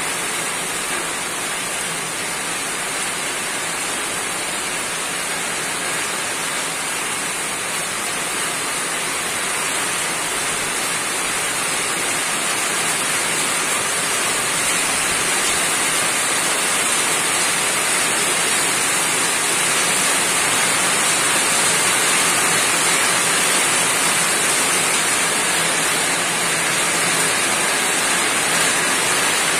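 Steady rain falling on a roof, an even unbroken hiss that slowly grows a little louder.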